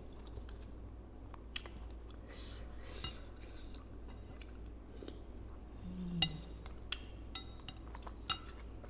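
Close-miked chewing of bakso meatballs with crunchy bone bits, then several sharp clinks as a wooden spoon and fork knock against a ceramic bowl in the second half.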